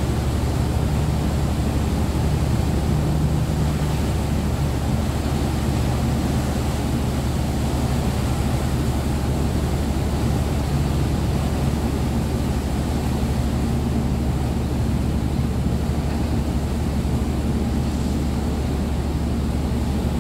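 Sakurajima car ferry's engines running with a steady low rumble and hum as the ship comes in alongside its berth.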